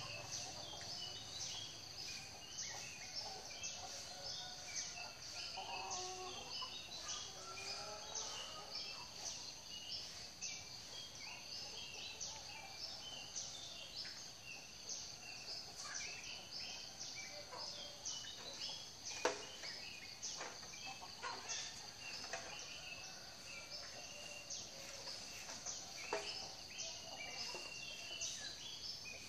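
Village morning ambience: many small birds chirping over a steady high-pitched drone, with a domestic fowl giving lower drawn-out calls between about five and nine seconds in. A couple of sharp clicks later on.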